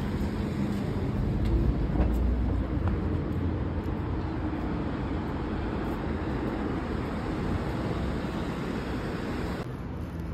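City street traffic noise: a steady rumble of cars passing on the road, dropping to a quieter, thinner background near the end.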